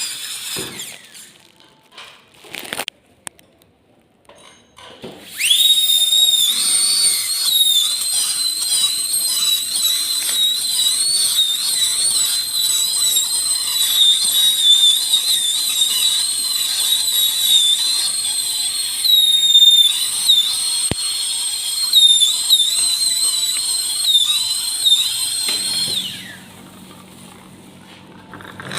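High-speed dental drill whining at a high pitch during root canal treatment, the pitch wavering and dipping as it cuts. It starts about five seconds in, runs for about twenty seconds, and winds down near the end.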